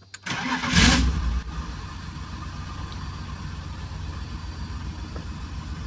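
BMW engine starting about half a second in, flaring briefly, then settling into a steady, pulsing idle. It is still missing, with cylinders 2 and 6 not firing.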